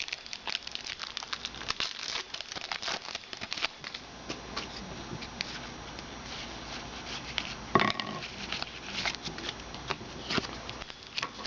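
Trading-card pack wrappers crinkling and tearing as packs are opened by hand, with cards shuffled through. There is a louder crinkle about eight seconds in.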